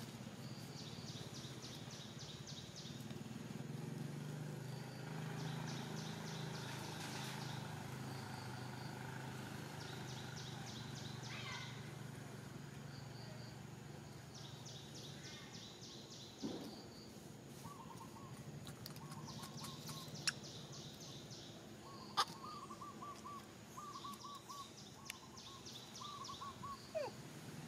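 Outdoor ambience of birds and insects. Rapid high pulsing trills come back every few seconds, and in the second half there are short repeated chirping calls. A steady low hum runs underneath, with a couple of sharp clicks.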